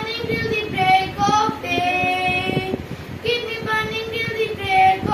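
A young girl singing a devotional prayer solo, in long held notes with short breaks between phrases.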